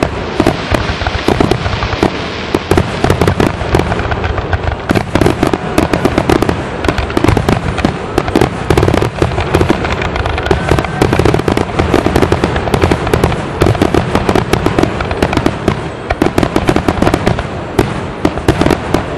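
Aerial fireworks shells bursting in a dense, continuous barrage. Rapid booms overlap with crackling, with no pause between them.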